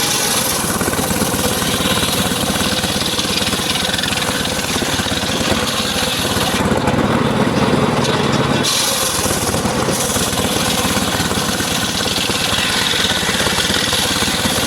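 Engine of a portable circular sawmill running steadily, loud and continuous. Its tone shifts between about seven and ten seconds in.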